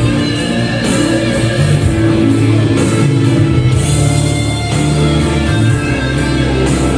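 Rock music with guitar prominent, playing steadily throughout.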